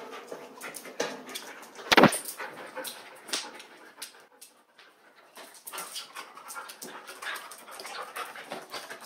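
Dogs playing on a tile floor: many quick clicks and scuffles, with one loud, sharp sound about two seconds in.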